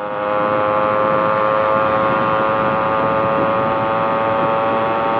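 Yamaha RX single-cylinder two-stroke motorcycle engine running at steady high revs while cruising at around 100 km/h. It makes one unbroken, high-pitched buzz over wind rush, and grows a little louder just after the start. The recently overhauled engine is running smoothly.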